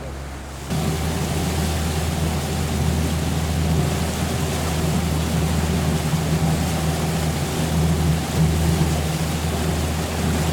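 A boat's engine running steadily, a low even hum under a rushing noise, cutting in suddenly about a second in.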